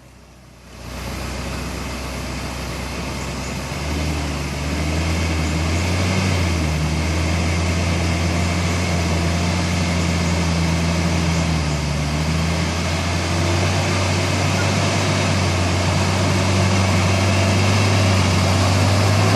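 Off-road 4x4's engine running at steady revs, a low hum that gets louder about four seconds in and then holds.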